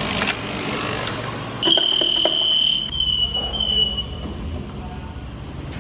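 An electronic beeper sounds one long, high beep of about a second, then two shorter beeps, typical of a building's security door or elevator signal. Before it comes a second of rushing noise with a few clicks.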